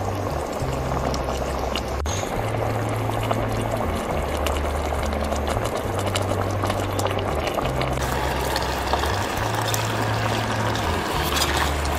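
Potato curry in tomato gravy bubbling as it simmers in a pot, over background music whose bass notes change about once a second. Near the end, clicks as chopped eggplant pieces are dropped into the pot.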